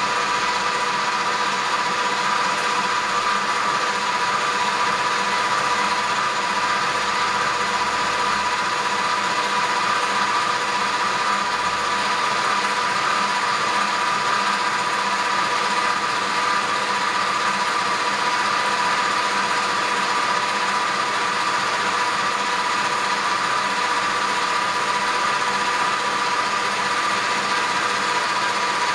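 Cuisinart stand mixer running steadily, its whisk beating egg whites into Italian meringue while hot sugar syrup is added: a constant motor whine.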